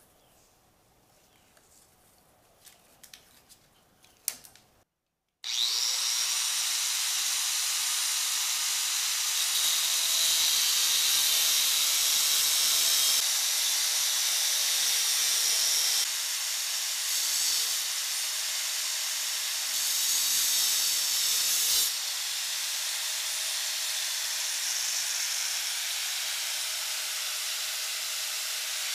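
Angle grinder working on the motorcycle's metal frame, throwing sparks. A few faint clicks come first, then about five seconds in the grinder starts suddenly and runs steadily: a loud, high-pitched grinding with a faint whine, its level shifting slightly a few times.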